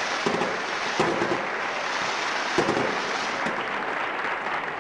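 Fireworks sound effect: a few separate bangs over continuous crackling.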